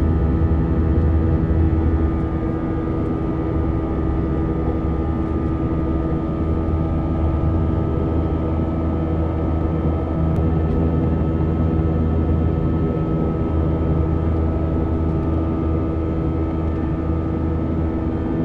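Airbus A320 cabin noise beside the wing-mounted jet engine in flight: a steady engine drone and airflow rush with a strong low rumble and a few constant hum tones.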